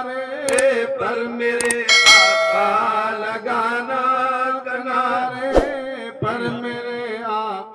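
A group of men's voices chanting a naat refrain over a held note. In the first two seconds there are a few clicks and then a short bright bell-like ding from a subscribe-button animation, and a thump comes near the end.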